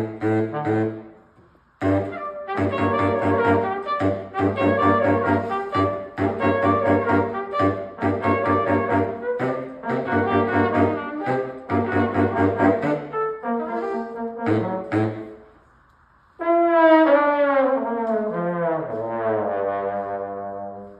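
A trio of trumpet, baritone saxophone and trombone playing together in short rhythmic chords, breaking off briefly twice. Near the end all the parts slide down in pitch together in a long falling close.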